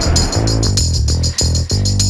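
Theme music for a TV news segment's opening titles, with a steady beat and a deep bass line.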